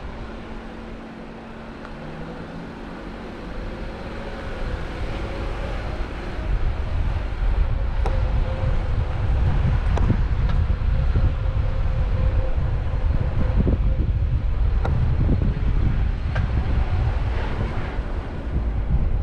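Wind buffeting on the microphone: a deep rumble that grows louder about six seconds in, with scattered knocks and clicks.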